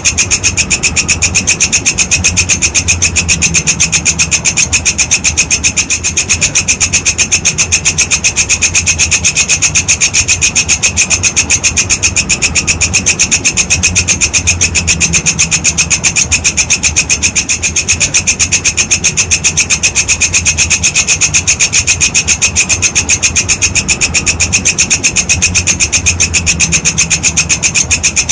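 Walang kecek grasshopper stridulating: a continuous, fast, even train of high-pitched rasping pulses, with a low hum underneath.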